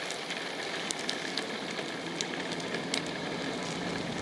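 Board wheels rolling steadily over an asphalt path, a continuous rumbling hiss with scattered small clicks and crackles from grit under the wheels.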